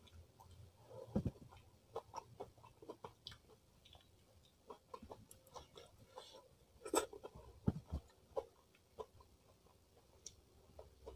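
Close-up eating sounds: chewing with scattered small crackles and clicks, and a couple of soft low thumps.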